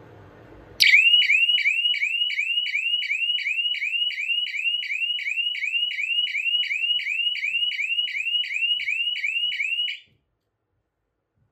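Electronic horn siren of a DIY rain alarm sounding a fast repeating rising whoop, about three a second, set off by water dripped onto the rain-sensor plate. It starts suddenly about a second in and cuts off abruptly near the end as the plate is wiped dry.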